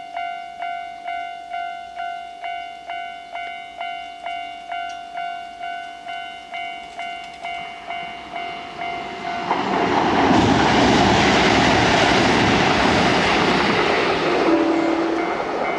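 Japanese railway level-crossing warning bell dinging about twice a second. About nine and a half seconds in, a Kintetsu 22000 series limited express electric train passes over the crossing at speed, and the noise of its passing drowns the bell.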